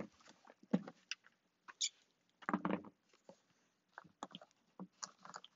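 Paper fibre rush cord rustling and scraping against the woven seat as it is handled and pulled through by hand: an irregular string of short scratchy rustles and clicks, the loudest about a second in and again about two and a half seconds in.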